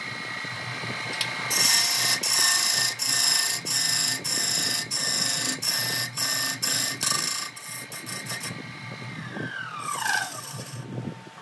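Wood lathe running with a steady high whine while a gouge cuts into the spinning log blank, a loud rasping, pulsing scrape of chips coming off the wood. The cutting stops, and near the end the lathe's whine falls steeply in pitch as it is switched off and spins down.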